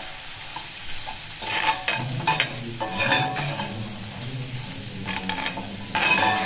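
Onion, ginger-garlic and spice masala sizzling in hot oil in a pan while it is stirred, with about five scraping strokes against the pan, the loudest near the end. The masala is being sautéed until its raw smell goes.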